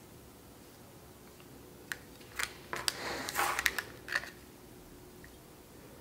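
Several small sharp clicks and a brief scraping rustle from a bread lame, a razor blade clipped to a wooden handle, being handled and worked at by both hands, clustered between about two and four and a half seconds in.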